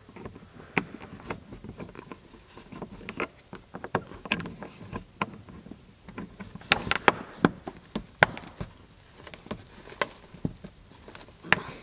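Plastic clicks and taps of a car's interior dome light lens cover being pressed and snapped back into its housing, uneven and irregular, with sharper clicks about seven seconds in and again just before the end.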